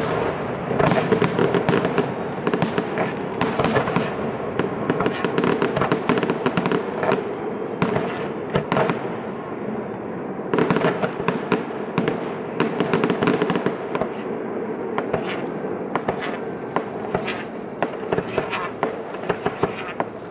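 Fireworks display: a dense run of bangs and crackling, with heavier volleys about a second in and again around ten to thirteen seconds in.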